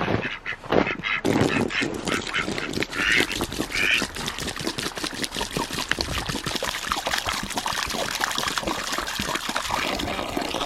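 Farm poultry, likely ducks, calling twice in short, duck-like calls about three and four seconds in, over a steady crackling, splashing noise.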